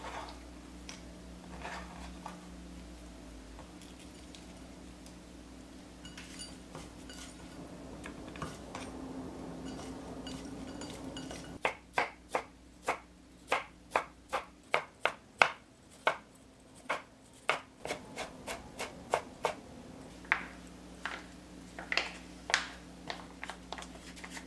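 Kitchen knife chopping on a cutting board. After some quieter handling knocks, a run of steady chops begins about halfway through at a little over two a second, then thins to scattered chops near the end.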